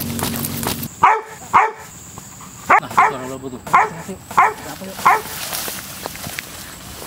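Black Labrador retriever barking: about seven short, sharp barks at uneven intervals. The barking is the dog alerting to something suspicious in the grass, which its handler takes as a sign of a snake nearby.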